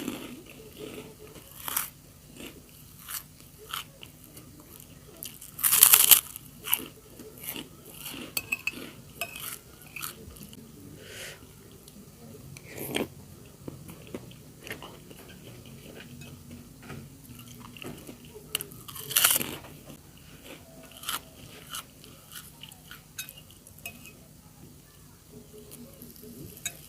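Close-up eating sounds: crisp bites into kerupuk crackers and chewing, as scattered sharp crunches. The two loudest come about six seconds in and again near nineteen seconds.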